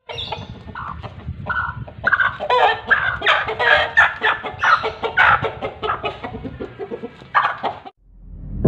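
Bangkok game roosters calling in many short calls in quick succession, densest from about two to five seconds in; the calls stop about a second before the end.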